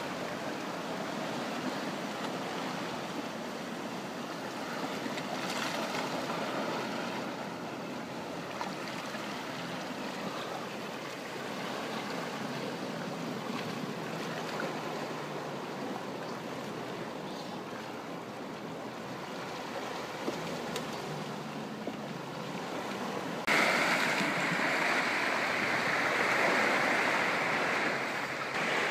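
Sea water washing and lapping around rocks and kelp, a steady hiss of wash. Near the end it suddenly becomes louder and brighter.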